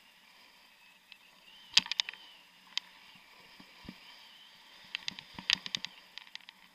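Skis sliding down a snow-covered piste with a faint steady hiss, broken by clusters of sharp clicks and knocks about two seconds in and again past five seconds.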